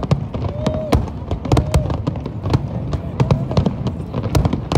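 Aerial fireworks bursting and crackling: a dense run of sharp cracks and bangs, several a second, over a low rumble, with people's voices in the crowd.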